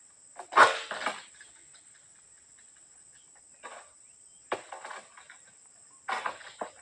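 Sharp cracking knocks in short clusters, about a second in, again around four and a half seconds and near the end, as oil palm fronds and fruit stalks are cut high in the tree. A steady high insect buzz runs beneath.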